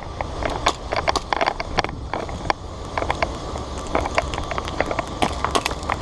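Airsoft gunfire: irregular sharp clicks, several a second, over a low rumble.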